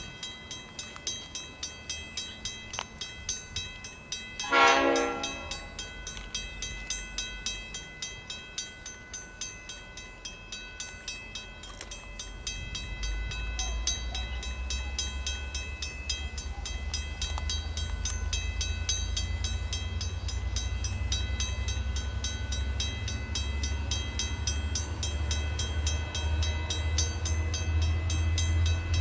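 Safetran mechanical railway warning bell ringing in rapid strokes, about three a second, signalling an approaching train. A train horn sounds once, briefly, about four and a half seconds in, and from about thirteen seconds a low rumble of the train grows louder.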